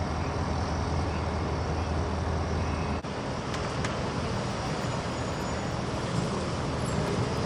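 Road traffic noise: the steady hum of cars and trucks in heavy traffic, with a brief dip about three seconds in.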